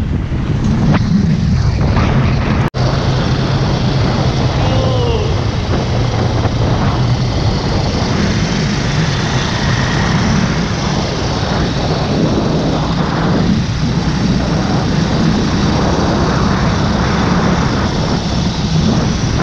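Motorcycle engine running at road speed, with wind rushing over the microphone; the sound drops out for an instant about three seconds in.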